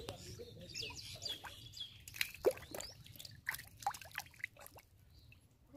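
Wet mud squelching and muddy water dripping and splashing as a bare hand digs through a shallow mud pool, in quick irregular wet plops and gurgles, the loudest about halfway through.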